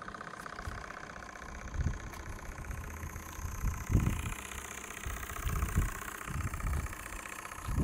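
Small Graham model steam engine in an RC tug running steadily with a fast, even chuffing beat. Irregular low buffeting comes and goes on top of it.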